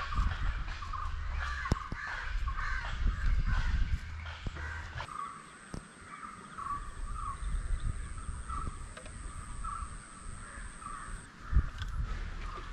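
Crows cawing again and again in short calls. A low rumble sits under the first few seconds, and a single sharp knock comes near the end.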